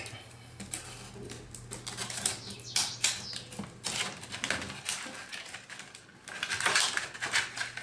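Irregular quick clicks and crackles of a small USB-to-RJ45 Ethernet adapter and its cable being handled.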